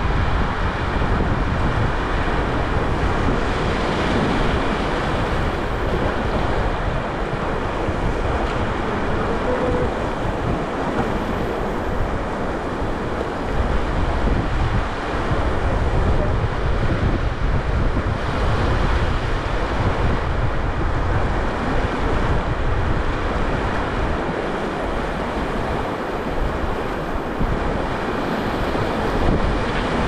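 River water rushing steadily around a raft, with wind buffeting the microphone.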